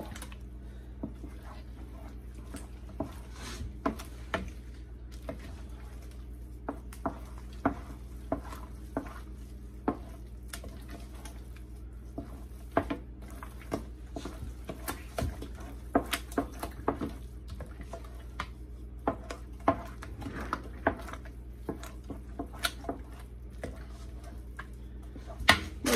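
Wooden spoon stirring thick, cheesy sauce in a large stainless steel stockpot, with irregular clicks and knocks as the spoon hits the pot's sides and bottom, over a steady low hum.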